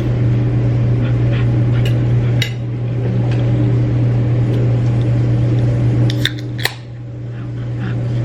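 A few sharp clicks and clinks of cutlery and dishes at a diner table, over a steady low hum. The hum drops in level about two and a half seconds in and again near seven seconds.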